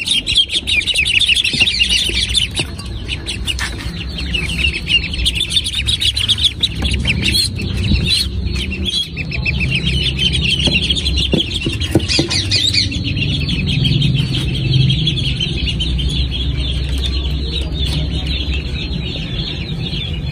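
A group of ducklings peeping continuously, with many rapid high cheeps overlapping, over a steady low rumble.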